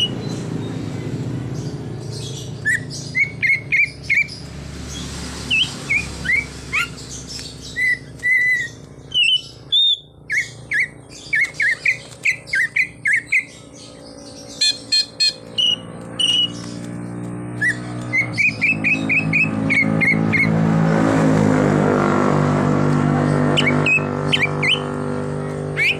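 Cucak ijo (green leafbird) singing: loud runs of short whistled notes, repeated in quick bursts throughout. A low hum swells in the background about two-thirds of the way through.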